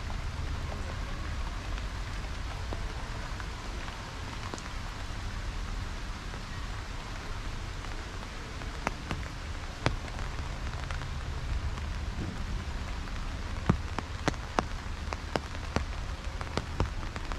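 Steady rain falling, with sharp single drops landing close by; the drops come more often in the second half.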